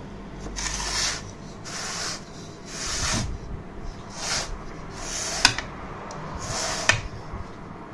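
A spatula scraping thick cake batter out of a food-processor bowl into a tube pan: a series of rasping strokes about once a second, with two sharp clicks in the second half.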